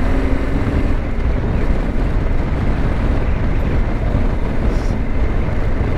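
Steady wind rush on a helmet-mounted microphone of a Yamaha Ténéré 700 adventure motorcycle cruising at about 50 km/h, with the low drone of its engine underneath.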